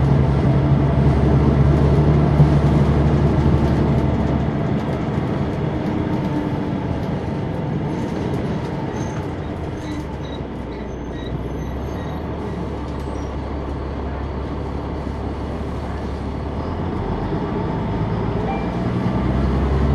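Caterpillar C9 ACERT diesel of a 2004 Neoplan AN459 articulated transit bus, heard on board from the rear seats near the engine. It pulls under power for the first few seconds, drops to quieter running through the middle, then picks up and pulls again near the end.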